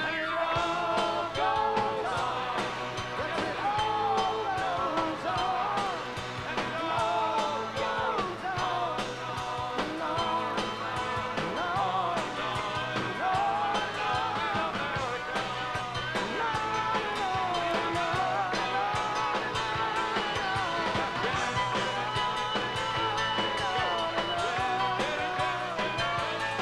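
Live rock band playing electric guitar, bass and drums, with a lead vocal singing over them.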